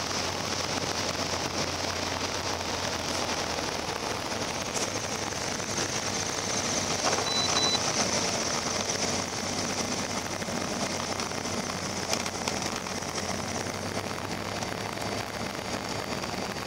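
Piper Cherokee Arrow's engine and propeller noise heard inside the cabin as the light aircraft rolls along the runway: a steady rushing hiss with no clear beat.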